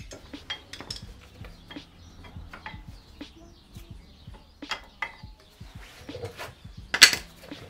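Metal clicks and scrapes as a thin tool pries and hands wiggle brake pads loose inside a Brembo brake caliper; the pads are stuck to the rotor from the car sitting unused. A single sharp, louder clack comes about seven seconds in.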